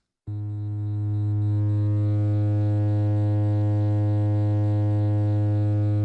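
Synthesized low-pitched demonstration tone with many overtones, starting a moment in at a steady pitch. It grows louder over the first second or so and then holds, a test tone raised in intensity at a fixed low frequency.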